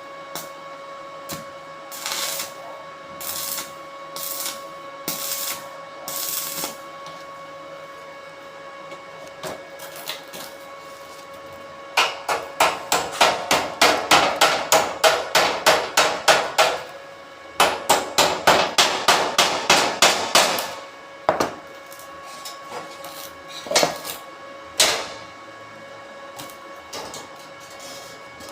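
Hammer blows in two rapid, even runs of about four strikes a second, midway through. Softer scraping strokes about once a second come before them, and a few single knocks after, over a faint steady hum.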